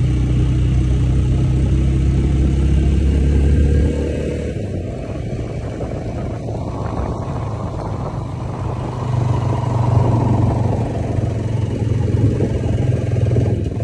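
Motorcycle engine running steadily while riding, heard from the saddle. Its low engine note drops and softens about four seconds in, then picks up again a few seconds later.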